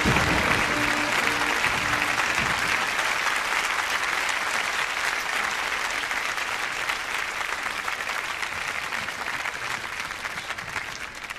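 Audience applauding, with music fading out about two seconds in; the applause then slowly dies down.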